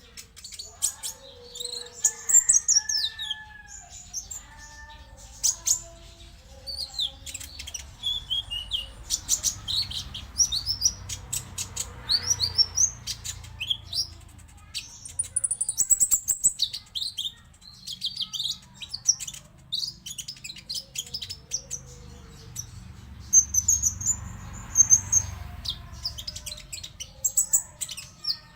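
Konin songbirds singing a busy, unbroken run of quick high chirps, twitters and short gliding whistles, with softer lower call notes mixed in. This is a lure song for getting a silent konin to start singing.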